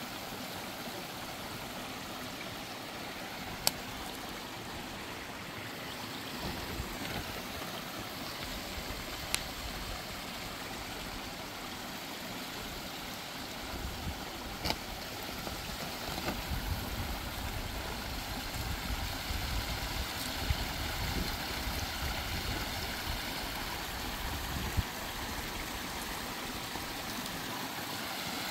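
Small mountain stream running over rocks: a steady rushing trickle, with a few short, sharp clicks over it and a heavier low rumble in the second half.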